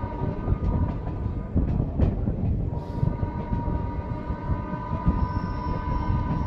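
WDM-2 diesel-electric locomotive's 16-cylinder ALCO engine chugging under load as it pulls a passenger train away. A few knocks come early on, and a steady high tone comes in about three seconds in and holds.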